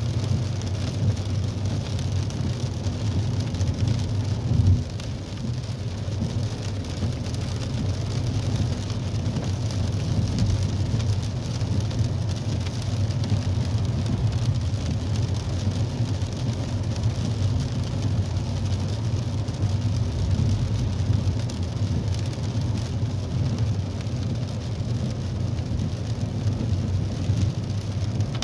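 Inside a moving car in the rain: a steady low rumble of the engine and tyres on the wet road, with an even hiss of rain and spray. A single brief thump about five seconds in.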